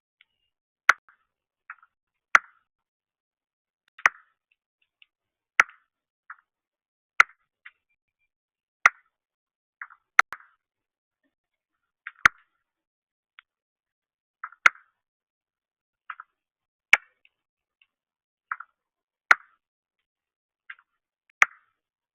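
Sharp single clicks about every second and a half from northern cardinals pecking at seed on a feeder.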